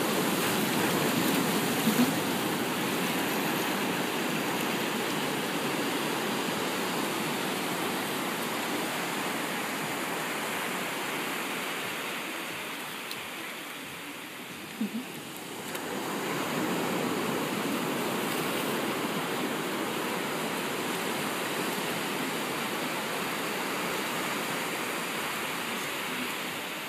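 Ocean surf breaking and washing up the sand: a steady rush of water that eases off about halfway through and swells again a couple of seconds later as another wave comes in.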